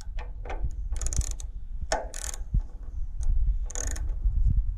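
Ratchet wrench clicking in several back-and-forth strokes as it undoes a 10 mm fuel-tank bolt.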